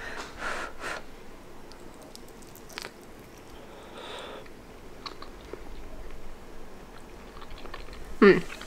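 Someone blowing on a hot steamed pork dumpling in a few breathy puffs, in the first second and again around four seconds in, then chewing it with faint wet mouth sounds. A brief vocal sound comes near the end.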